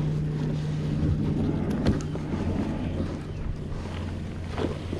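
Steady low hum of a boat motor running, with a couple of short knocks or splashes.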